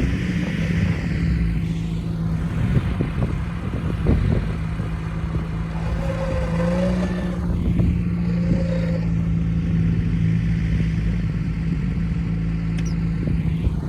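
Off-road vehicle engine running steadily, with scattered knocks and clatter.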